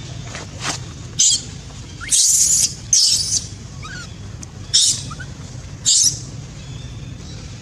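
Infant long-tailed macaque squealing: a string of about five short, shrill shrieks spread over several seconds, the longest about a second in and again near the middle.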